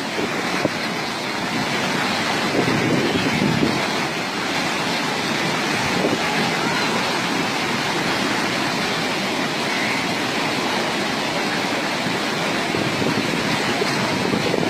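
Flooded river rushing past, a steady hiss-like noise of fast water with no breaks.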